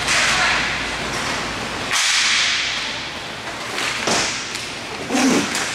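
Loud swishing noise of roller hockey play, skate wheels and sticks on the rink floor, coming in three swells about two seconds apart, each starting sharply and fading.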